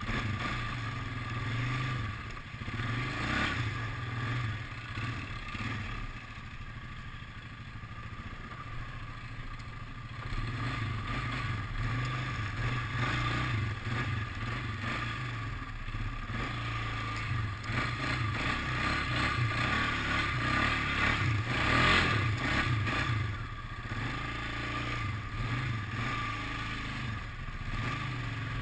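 An ATV engine running under varying throttle as the quad is ridden over a rough, muddy trail, its revs and loudness rising and falling, with clattering and scraping from the machine bouncing over the ground, loudest about three quarters of the way through.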